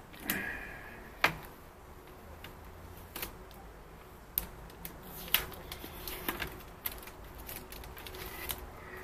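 Handling noise: irregular sharp clicks and light knocks of the plastic 3D printer, its cable and the plastic packaging being handled and moved about, about eight distinct clicks spread unevenly.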